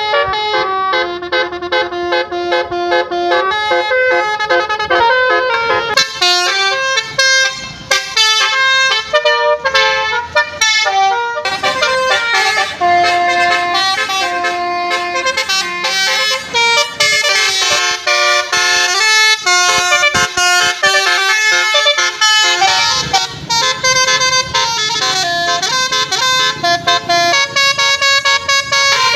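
Telolet basuri (Basuri V3) musical horn on a tour bus playing a melody: a quick run of loud, reedy horn notes stepping from pitch to pitch with short breaks between them.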